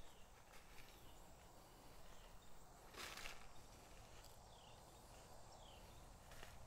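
Near silence: quiet field ambience with several faint, short, high chirps that fall in pitch, and one brief rustle about three seconds in.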